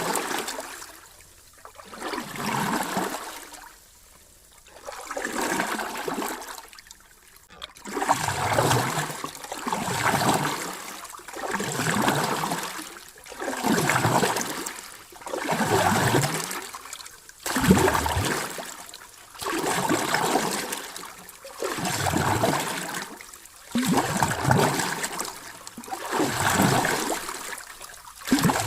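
Sea waves washing in and drawing back. Each surge of rushing water rises and falls about every two seconds.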